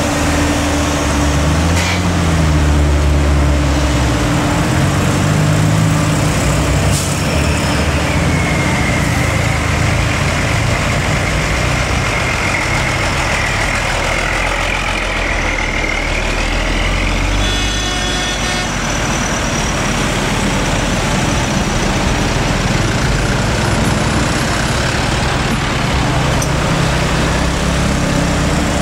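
Slow heavy traffic passing close by: diesel truck engines running and revving, a drawn-out whine through the middle, and a brief horn toot about two-thirds of the way through.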